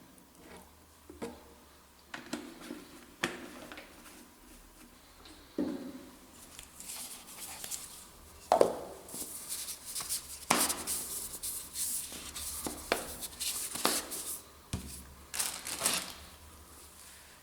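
Hands handling packaging and small plastic parts: scattered clicks and knocks, then about ten seconds of crinkly rustling mixed with sharper taps.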